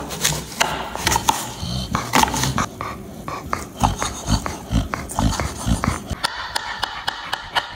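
A dog licking and eating a frozen yogurt popsicle: many quick, irregular wet smacks and clicks.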